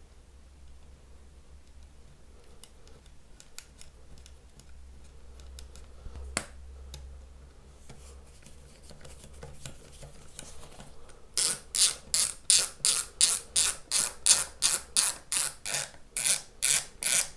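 Ratcheting screwdriver turning the spring-loaded intonation screw into a bass bridge saddle. After a long quiet stretch of faint handling clicks, a fast, even run of loud ratchet clicks starts about eleven seconds in, about three a second.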